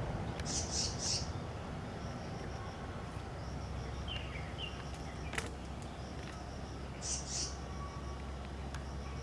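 Black-naped monarch giving harsh calls in two pairs, one pair about half a second in and another about seven seconds in; the uploader takes the calling for a parent calling its young. A faint, evenly repeated high pulsing continues under it.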